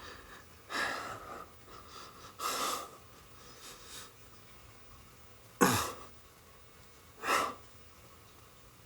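A person's heavy breathing: four separate loud breaths or gasps, the loudest about halfway through with a short moan falling in pitch.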